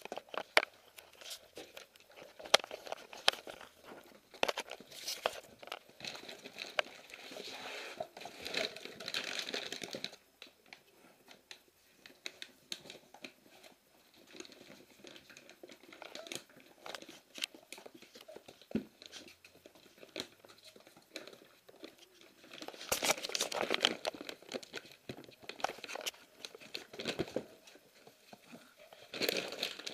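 Siberian husky puppies at play, crinkling and tearing paper with scattered sharp clicks and taps; the rustling swells in a few longer stretches and dies back between them.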